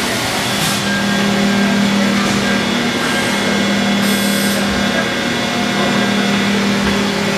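Haas EC-400PP horizontal machining center cutting with its spindle at about 8,000 rpm under light load and flood coolant spraying, heard through the closed enclosure door: a steady hum over a hiss, with a short burst of higher hiss about four seconds in.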